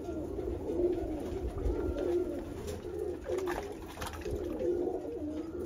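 Domestic pigeons cooing over and over, low wavering calls. A few short splashes of water come from a bucket as a pigeon is dipped in it.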